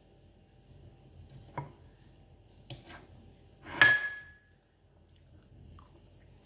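A metal spoon clinking against a plate a few times while scooping food; the loudest clink, about four seconds in, rings briefly.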